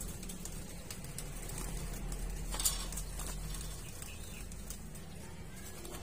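Ring-necked dove feeding a zebra dove chick by regurgitation: wings flapping and feathers rustling as the birds jostle over the nest, with one sharper flap or knock about two and a half seconds in.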